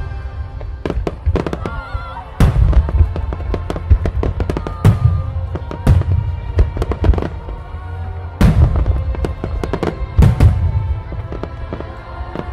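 Fireworks display: aerial shells bursting in a string of loud bangs, with music playing over them.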